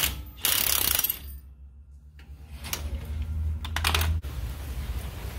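Impact wrench driving the forcing screw of a three-jaw gear puller in bursts of rapid hammering, pulling the pinion flange off a Dana 44 front axle's pinion. A short loud burst about half a second in, then a longer, duller run that stops sharply about four seconds in.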